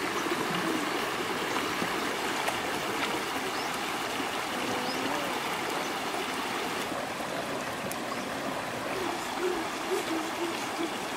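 Shallow rocky stream running steadily over stones, an even rush of water.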